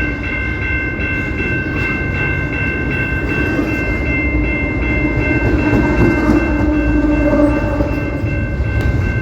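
CP Rail train passing, its wheels rumbling and clacking on the rails, with steady high-pitched tones held throughout.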